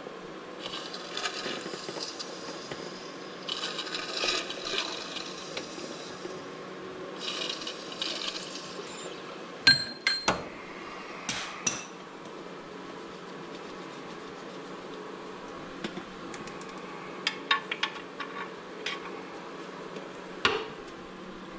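Metal hand tools clinking and knocking against metal engine and transmission parts, with stretches of fast fine clicking in the first nine seconds, a few sharp knocks around ten to twelve seconds in, and scattered small ticks and a knock near the end.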